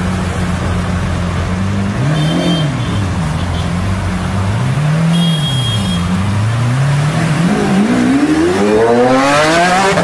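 Lamborghini Aventador V12 idling, blipped up and back down twice, then revving up in one long rising pull as the car accelerates away.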